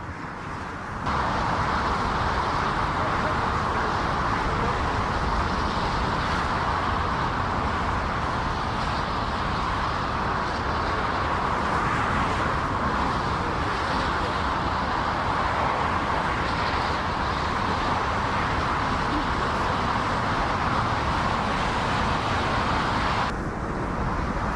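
Airliner jet engines running, a steady rushing noise centred in the middle range with a low rumble beneath, starting abruptly about a second in and cutting off near the end.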